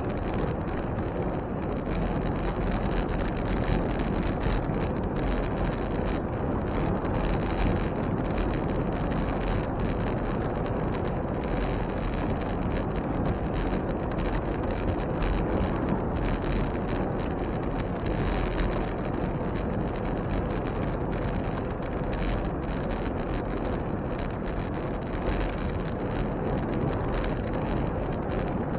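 Steady rushing of wind over the microphone of a camera riding on a moving bicycle, a dense low rumble with no breaks.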